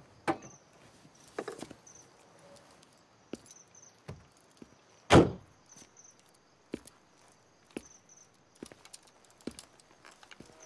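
Slow, heavy footsteps of a police officer's shoes on pavement, one sharp knock about every second, with a single loud thunk about five seconds in. Faint crickets chirp in the background.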